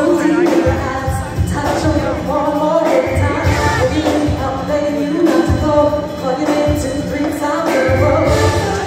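Live band music with a singer, loud, with a pulsing bass beat.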